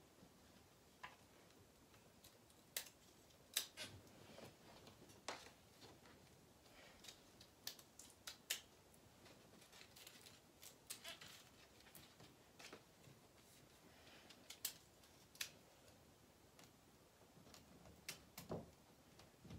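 Faint, irregular clicks and taps of hand-hung wall decor: a framed letter board and small ornaments being handled and pressed against a wall, over quiet room tone.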